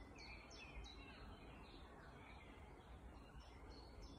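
Faint woodland birdsong: a small bird's quick, high chirps, a run of them in the first second or so and more near the end, over a quiet low background hum.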